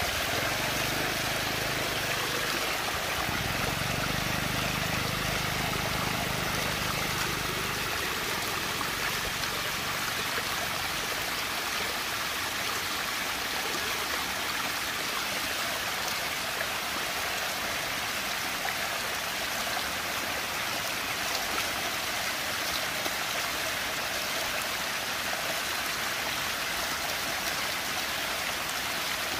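Steady rushing, swirling water of a whirlpool vortex, with a low rumble underneath that stops about eight seconds in.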